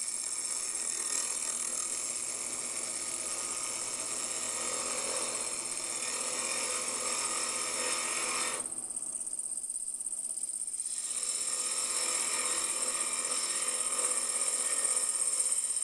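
Wood lathe running with a steady high whine while a carbide roughing tool cuts a spinning Bois d'Arc (Osage orange) duck-call blank down in small bites. The cutting noise breaks off for about two seconds a little past the middle, then resumes.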